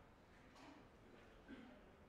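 Near silence: a quiet hall's room tone, with a couple of faint, indistinct sounds from the audience.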